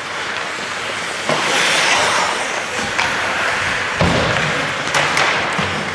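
Ice hockey play in a rink: skates scraping the ice with several sharp knocks of sticks and puck, and a heavy thud about four seconds in as players meet along the boards.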